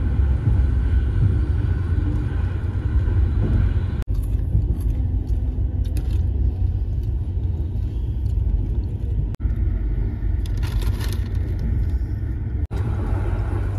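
Steady low rumble of an Indian Railways LHB 3E coach running at speed on the rails, heard from inside the coach. It cuts out briefly three times.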